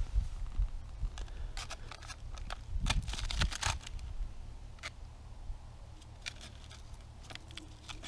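Short scrapes, clicks and crackles of hands setting a pike tip-up in a hole in the ice, its wooden base rubbing on the ice and slush. They come in a busy cluster about a second and a half in, then a few scattered ones, over a low rumble.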